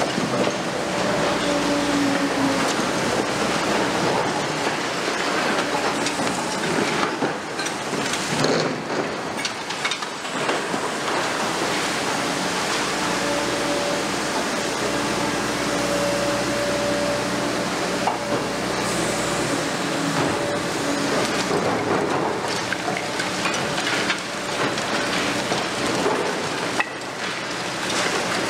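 Liebherr R 950 Demolition high-reach excavator tearing down a building: a continuous clatter and crunch of concrete rubble breaking and falling, over the steady drone of the machine's engine and hydraulics.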